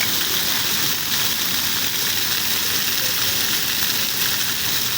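Steady hiss of rushing water.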